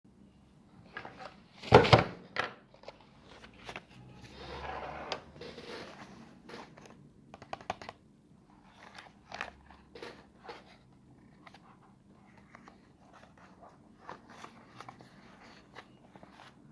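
Hands handling a small cardboard product box on a wooden table: a loud knock about two seconds in, then scattered taps, scrapes and rustles as the box is turned over.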